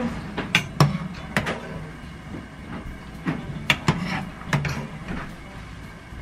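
Anchovy and dried-pollack broth boiling in a saucepan while a slotted ladle scoops out the anchovies and pollack, knocking and scraping against the pot in a string of irregular sharp clicks.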